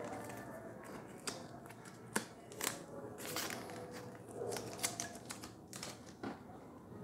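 Art materials being handled at a table, a brush and a watercolour paint box among them: a scatter of light clicks and taps with some soft rustling between them.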